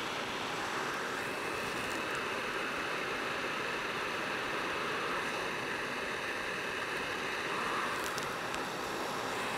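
Hot-air rework station blowing a steady hiss of air onto a chip while its solder melts, with a faint steady whine from the station's blower.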